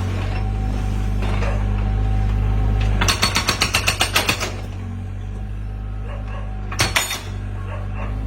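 Excavator's hydraulic rock-breaking hammer pounding in a rapid burst of about eight blows a second, starting about three seconds in and lasting a second and a half, with a shorter burst near the end. The machine's engine runs steadily underneath.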